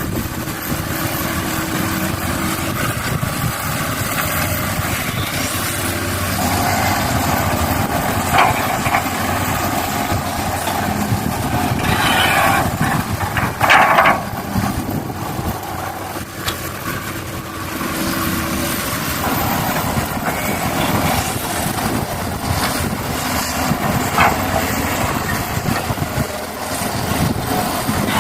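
Radio-controlled model excavator working: its hydraulic pump whines in stretches as the arm moves, over a steady mechanical hum. A few short clatters come as soil is scooped and dropped into the model dump truck.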